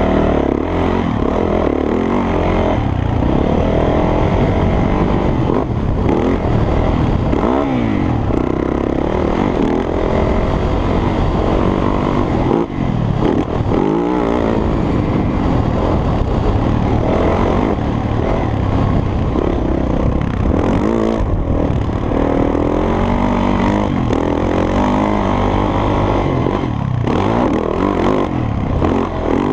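2010 Yamaha YZ450F four-stroke single-cylinder engine in a three-wheeler conversion, revving up and down as it is ridden hard, its pitch repeatedly rising under throttle and falling away when the throttle is rolled off.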